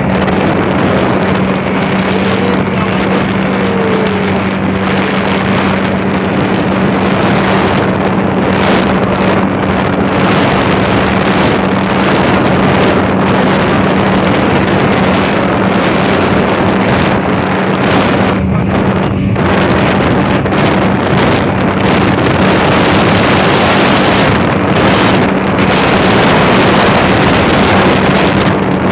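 Speedboat engine running steadily while the boat is underway: a constant, unchanging hum under a thick rush of noise, with wind buffeting the microphone.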